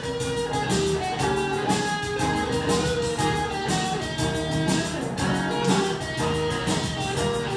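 Electric and acoustic guitars playing a song together live: held lead notes over a steady strummed rhythm.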